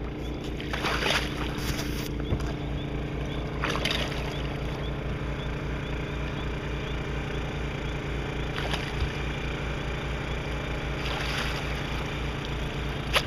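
Steady drone of a bowfishing boat's motor, with a few short splashes as an arrowed buffalo fish thrashes at the surface and is pulled in.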